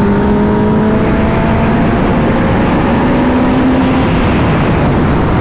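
Kawasaki ZX-10R's inline-four engine accelerating hard in sixth gear, its pitch rising slowly as the bike climbs from about 140 to 180 km/h, over a heavy rush of wind.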